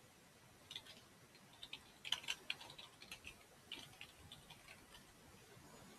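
Faint, irregular light clicks, a dozen or so, bunched most closely about two seconds in, over faint background hiss.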